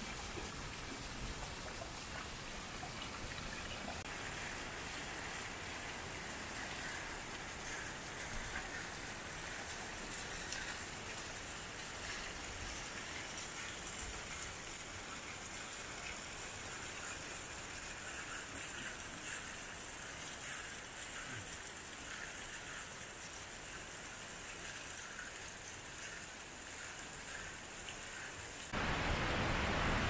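Waterfall spilling down wet rock, with drops spattering onto the pool below: a steady hiss of falling water with fine scattered taps. Shortly before the end it cuts to a louder, even hiss.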